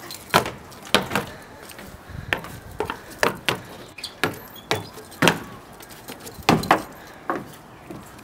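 Footsteps on wooden outdoor stairs: an irregular run of sharp knocks, about two a second, as two people climb the steps.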